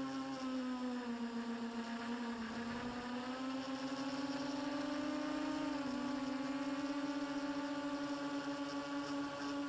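Whine of a radio-controlled model aircraft's motor and propeller, heard from its own onboard camera: one steady pitch that dips slightly about two seconds in and rises again around four to five seconds in.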